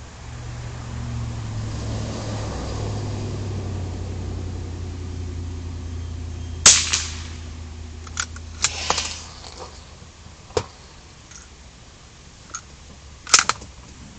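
Two gunshots about seven seconds apart, the first about halfway in and the second near the end, with several lighter clicks and knocks between them. A low steady drone underneath fades out soon after the first shot.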